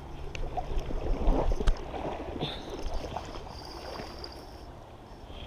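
River water sloshing and gurgling close to the microphone, with irregular bumps and rustles of the camera being handled, loudest about one and a half seconds in.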